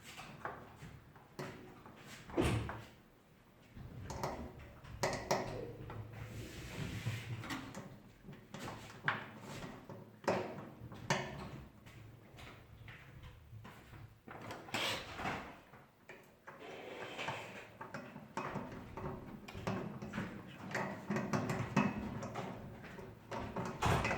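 Hands fitting a thermostat back inside an electric oven: irregular metal clicks, knocks and scraping as the part and its wiring are handled and seated.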